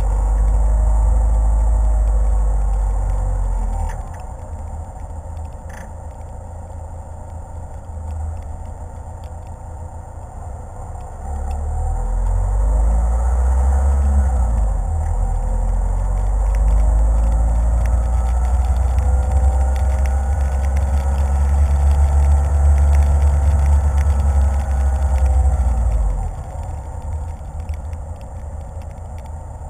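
Car driving, heard from a GoPro mounted on its hood: engine note over a deep rumble. It drops about four seconds in, swells again about twelve seconds in with the engine pitch climbing as the car gathers speed, and falls off again near the end.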